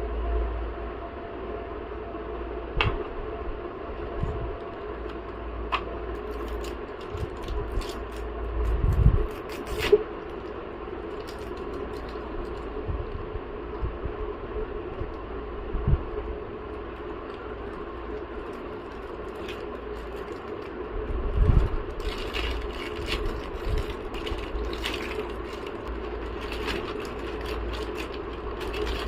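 A steady hum with scattered clicks and knocks, and a few heavier low thumps, the loudest about nine and twenty-one seconds in; the clicking grows busier near the end.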